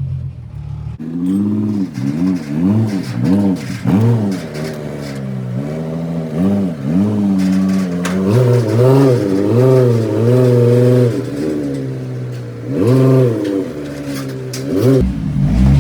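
Car engine revving up and falling back again and again, the pitch rising and dropping in short swells, as the car is crept slowly up onto a car-hauler trailer.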